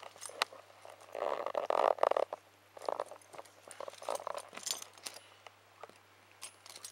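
Keys and small metal key-ring tools clinking and clicking as they are handled, with a louder stretch of rustling and knocking about a second in.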